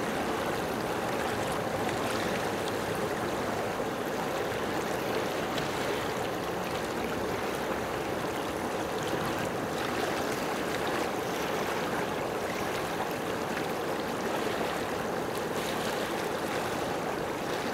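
Steady rushing water.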